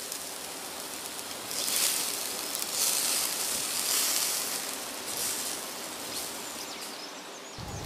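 Steady hissing sizzle of a gas barbecue grill, swelling a couple of seconds in and easing off near the end.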